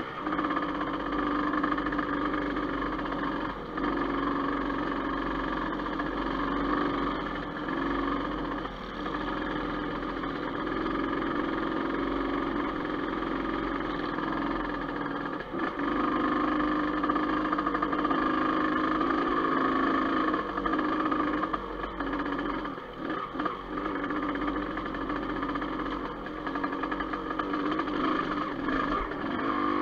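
Dirt bike engine running while riding, heard from on the bike itself, its note rising and falling with the throttle. The engine note drops briefly a few times past the middle.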